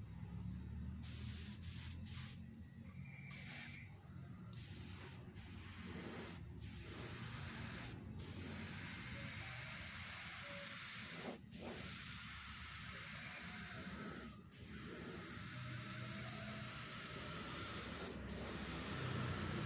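Gravity-feed spray gun hissing as it sprays a melamine lacquer finish. It comes in bursts, cut by brief breaks where the trigger is let go: short bursts at first, then long, nearly unbroken passes. A steady low hum runs underneath.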